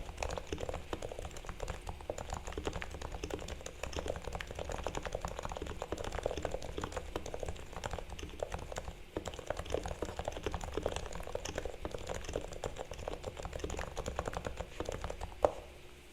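Continuous fast typing on a Realforce R2 TKL silent Topre keyboard with lubed sliders and springs, lubed stabilizers and Thinsulate dampening inside: a steady stream of muted keystrokes. One louder keystroke comes near the end, and then the typing stops.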